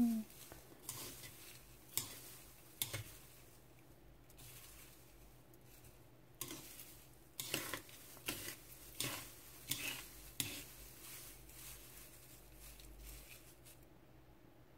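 Wooden chopsticks stirring and tossing crisp dried green laver and sesame seeds in a nonstick frying pan: intermittent light taps and scrapes against the pan, with a cluster of them in the middle and fewer near the end. This is the final dry stir-fry of the seasoned laver after the sesame seeds go in.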